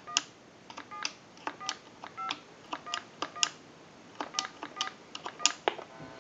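Touch-tone dialing on a push-button desk telephone whose buttons sit in a rotary-style dial. There are about ten irregularly spaced key presses, each a click followed by a short two-tone beep.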